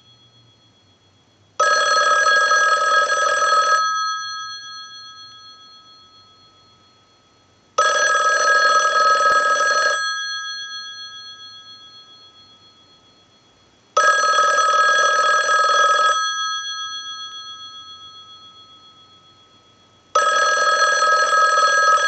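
Western Electric 500 rotary desk telephone's bell ringing on a standard ring cycle: four two-second rings about six seconds apart, each ringing out slowly after it stops. This is the set ringing in correctly on a test ring signal.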